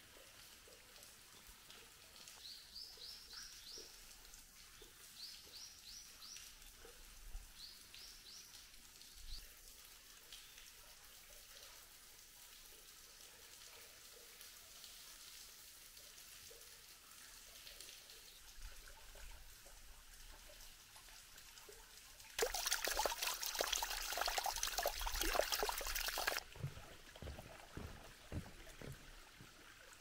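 Thin water trickling over wet rock, with a bird calling in short runs of rising high chirps during the first third. About two-thirds of the way in, a sudden, much louder rush of crackling noise lasts about four seconds and stops abruptly.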